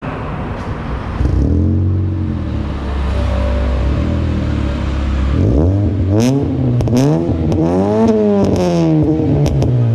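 Honda Brio's engine revving through an Ironcrafts aftermarket muffler. The revs rise about a second in and hold for a few seconds, then from about halfway come repeated quick blips, each rising and falling.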